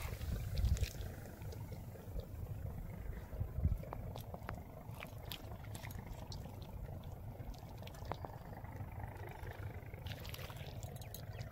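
Faint water sounds at the muddy edge of a tidal river, over an uneven low rumble of wind on the microphone, with a few small clicks. The rumble swells about half a second in and again about three and a half seconds in.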